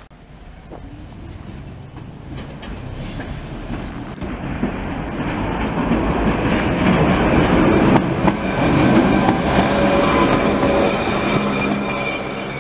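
Electric rack railcar of the Budapest Cog-wheel Railway passing by: the rumble and rattle of its wheels on the rack track build to a peak about eight to ten seconds in, then fade. A thin, high steady whine joins in the later part.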